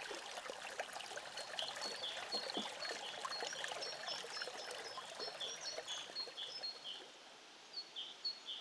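Small stream gurgling and trickling, with a bird calling over it in short high chirps, about two a second. The water sound drops away about seven seconds in, leaving the chirps.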